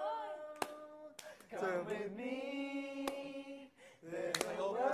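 Voices singing a cappella, with no instruments, holding one long note for about two seconds in the middle. A few sharp clicks are heard.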